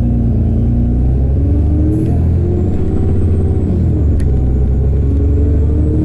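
Alexander Dennis Enviro400 bus's Cummins ISB 6.7 diesel engine pulling through its ZF Ecolife six-speed automatic gearbox in power mode. The engine note rises, drops back about four seconds in and climbs again, with a faint high whine above.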